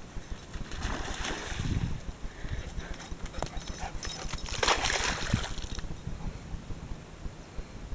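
Handheld outdoor noise: wind rumbling on the microphone, with scattered knocks and rustles of footsteps and handling. About four and a half seconds in comes a louder rush of rustling that lasts about a second.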